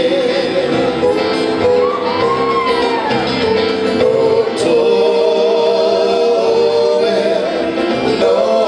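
Live band music played through the PA in a large hall: a man singing long held notes over acoustic guitar.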